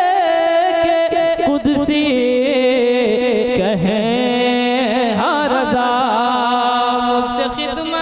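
A man sings a long wordless melismatic run from an Urdu devotional manqabat, his pitch wavering up and down over long held notes. Other men's voices can be heard singing along.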